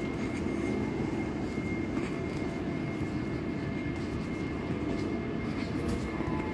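c2c Class 720 (Bombardier Aventra) electric multiple unit running: a steady low rumble with a thin, steady high whine above it and a few faint clicks.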